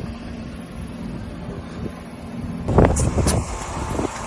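Car creeping forward with a low steady engine hum. Nearly three seconds in, the tyre crushes a capped drink bottle: a sudden loud burst followed by a short run of crackling.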